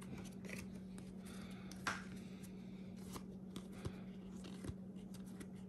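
Paper baseball trading cards being flipped through by hand, one sliding off the stack after another: faint, scattered soft swishes and taps, the clearest about two seconds in.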